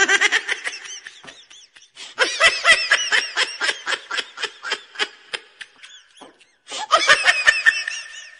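A person laughing hard in quick, high-pitched bursts, in three fits with short breaks between.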